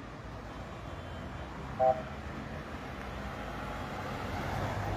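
Road traffic: cars driving past on a wide road, the noise growing louder toward the end as vehicles approach. A short beep stands out about two seconds in.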